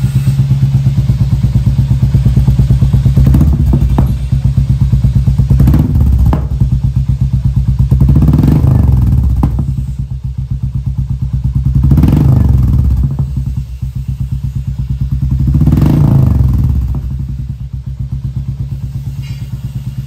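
Royal Enfield Meteor 350's single-cylinder engine running loud through a straight-pipe Monster exhaust, with the stock silencer and catalytic converter removed. It idles with a steady thump and is revved up about five times, backfiring after the revs.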